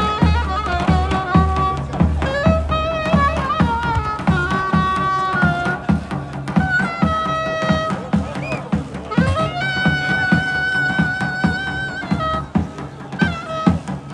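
Davul and zurna folk music: a shrill, ornamented reed melody with long held notes over a steady beat on the big bass drum.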